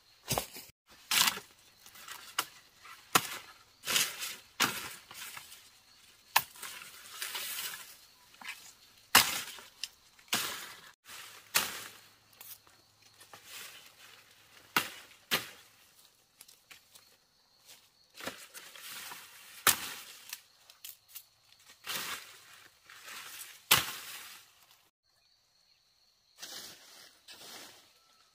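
Plant material being cut and handled by hand: irregular sharp chops mixed with short rustling swishes, falling quiet briefly about three seconds before the end.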